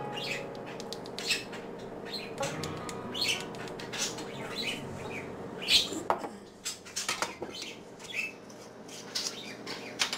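Dried parsley being shaken out of a small glass spice jar into a measuring spoon: a run of short, irregular rattling shakes and taps, with light clinks of jar and spoon.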